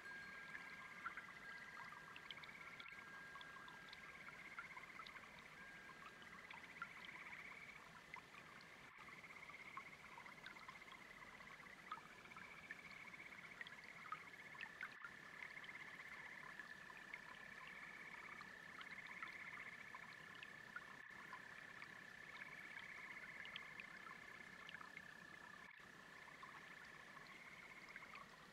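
Faint chorus of frogs and toads, with a steady high call and repeated pulsing calls, over a soft trickle of a brook.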